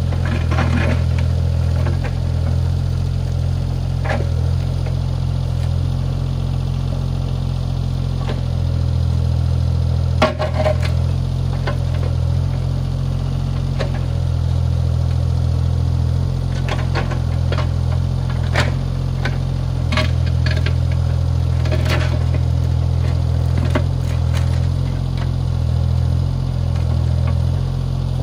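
CAT 303C CR mini excavator's diesel engine running steadily, with scattered knocks and clanks, the loudest about ten seconds in.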